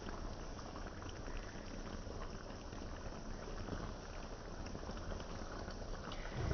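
Beef and broccoli simmering in a brown sauce in a pan, bubbling steadily with a soft crackle. A brief low bump just before the end.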